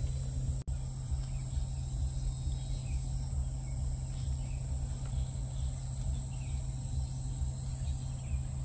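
Insects chirring steadily in one continuous high tone, with faint short chirps, over a low steady hum; the sound drops out briefly about half a second in.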